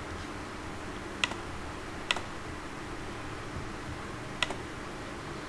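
Computer mouse clicking: three sharp single clicks, the last with a fainter one right after it, over a steady low background hiss.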